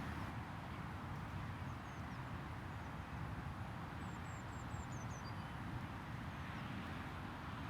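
Steady low outdoor background rumble with faint, high, short bird chirps, a quick run of them about four to five seconds in.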